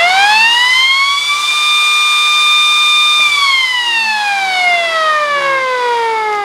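MS590 mini DC motor siren finishing a quick wind-up, holding a steady top pitch, then about three seconds in starting a long, slow wind-down with its pitch falling steadily. After the power is switched off, a large capacitor wired in parallel keeps feeding the motor as it discharges, stretching the wind-down.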